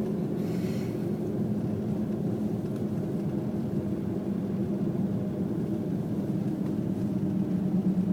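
Steady low drone of a car's engine and tyres heard from inside the cabin, driving at a constant speed on a snow-covered highway.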